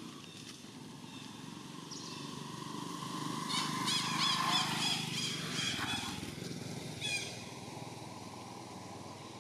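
A motor vehicle passes: its hum swells to a peak about four seconds in, drops in pitch and fades out. Over the loudest part comes a quick run of about eight high chirping calls, with one more a little later.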